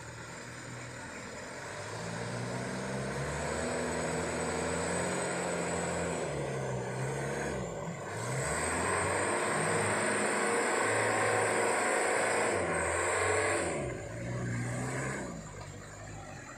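Truck engine labouring on a muddy climb, its revs rising and falling, with a brief drop about eight seconds in and another near fourteen seconds.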